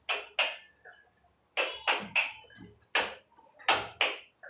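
Hammer blows, about eight sharp strikes in uneven groups of two or three, each ringing out briefly.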